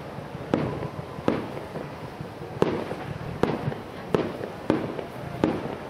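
Aerial fireworks shells bursting: about seven sharp bangs at uneven intervals under a second and a half apart, each trailing off in an echo.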